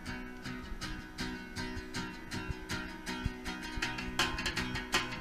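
A small live band playing: acoustic guitar strummed in a steady rhythm over bass and percussion, growing fuller and brighter about four seconds in.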